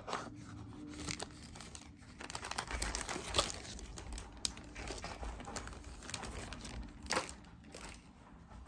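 Packaging crinkling and rustling as it is handled, with a few sharper clicks.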